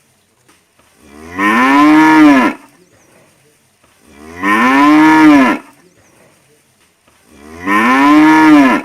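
A cow mooing three times, about three seconds apart. Each moo lasts just over a second, rising then falling in pitch.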